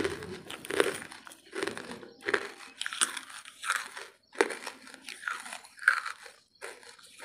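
Close-miked chewing of dry hardwood charcoal: a run of about ten sharp, crisp crunches, roughly one every 0.7 seconds.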